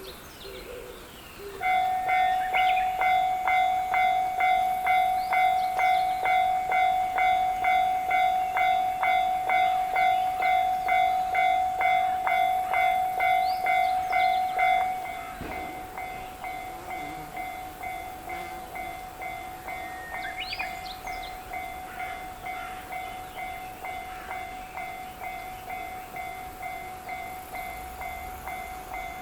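Japanese level-crossing electronic warning bell starts about a second and a half in, ringing its pitched ding about twice a second. About halfway through it drops to a much quieter level and keeps ringing. Birds chirp briefly a few times.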